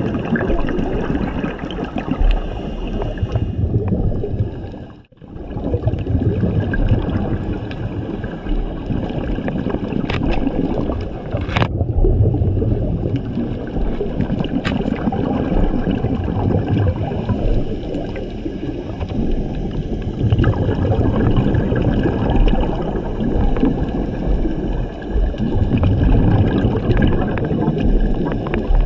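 Scuba diver's regulator breathing underwater: bubbles rumbling and gurgling in surges every six or seven seconds over a steady wash of water noise. One breath is briefly quiet about five seconds in.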